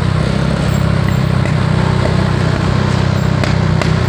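Steady vehicle engine drone with road and wind noise, heard from a vehicle moving at speed.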